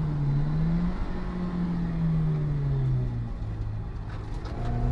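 Honda S2000's four-cylinder engine heard from inside the stripped-out cabin, its note holding high and then sinking slowly as the revs fall. It goes quieter for about a second near the end, then comes back on strongly just before the end.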